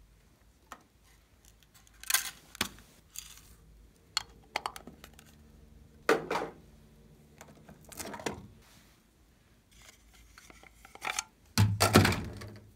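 Sharp clicks and knocks of small cosmetic containers being handled on a tabletop, a few at a time with pauses. The loudest cluster comes near the end, as a glass nail polish bottle is picked up and handled.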